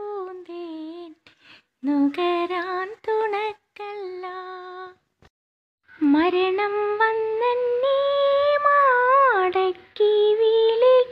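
A single high voice singing a Malayalam madh, a devotional song in praise of the Prophet, unaccompanied. It sings long held notes with wavering ornaments in four phrases broken by short pauses, the longest beginning about six seconds in.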